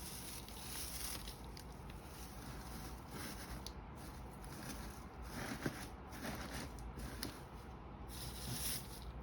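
Faint rustling and light crinkling of paper shred being handled and tucked into a gift basket, with a few soft taps.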